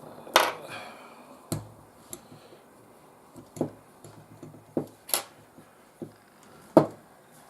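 Irregular sharp clicks and taps, about seven of them, of small hard objects being handled on a workbench, such as tools or the small ceramic circuit module.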